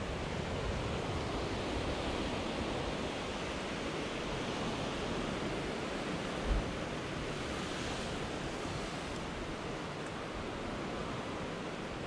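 Steady rush of ocean surf breaking on the rocks at the foot of the sea cliffs, mixed with wind on the microphone, with a single low thump about six and a half seconds in.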